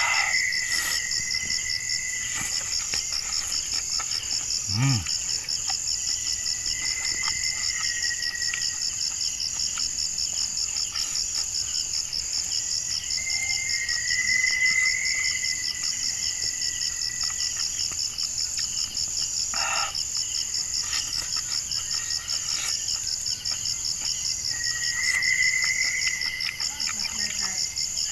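Night chorus of crickets: a steady, fast-pulsing high trill, with frogs calling now and then, lower in pitch, in spells of a second or two. A few soft clicks stand out, about five seconds in and again near twenty seconds.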